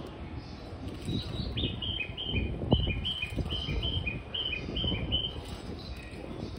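High two-note chirps, like a small bird's call, repeated about ten times at a little over two a second, over steady low background noise, with a single knock near the middle.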